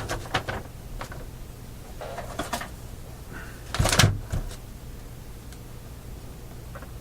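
A few short knocks and clunks of handling on the workbench, the loudest about four seconds in, over a steady low mains hum. The hum is faint and is the slight hum that remains in the tube radio, or in the shop, after the new filter capacitor was fitted.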